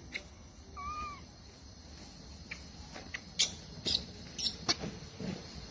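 A baby macaque gives one short, high squeak about a second in. Several sharp clicks follow in the second half, the loudest at about three and a half seconds in.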